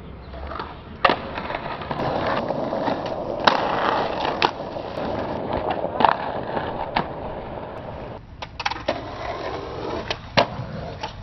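Skateboard wheels rolling on concrete with a steady rumble, broken by several sharp clacks of the board popping and landing, and the trucks grinding along a curb edge.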